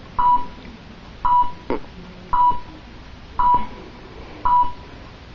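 Security alarm keypad sounding its exit-delay countdown while the system arms: five short, steady-pitched beeps, about one a second. A single brief click falls between the second and third beeps.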